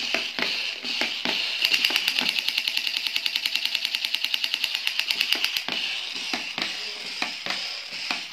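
Battery-operated crawling Captain America toy clicking along a few times a second as it crawls, then from about one and a half seconds in its toy gun's machine-gun firing effect, a fast even rattle lasting about four seconds, before the slower crawling clicks return.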